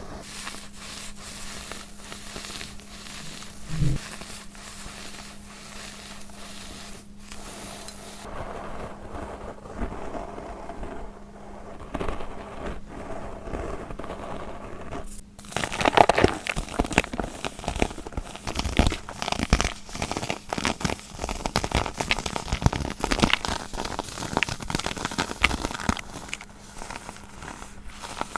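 Baking soda crushed and crumbled by hand: dense crackling and crunching, louder and busier from about halfway, over a faint steady hum.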